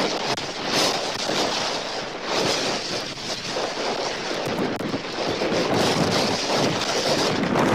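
Strong tropical-storm wind buffeting the nest cam's microphone in gusts, rising and falling.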